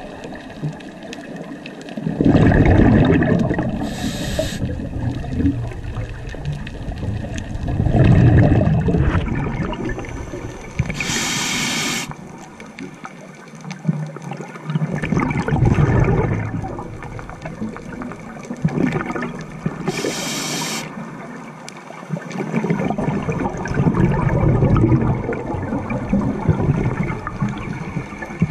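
Scuba diver breathing through a regulator underwater: a burst of exhaled bubbles rumbling out every six to eight seconds, and between them a short hiss of air drawn through the regulator, three times.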